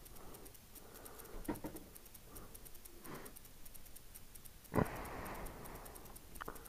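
Faint handling noises: a few light clicks, then a sudden louder knock about five seconds in followed by a second or so of soft rustling, and one more click near the end.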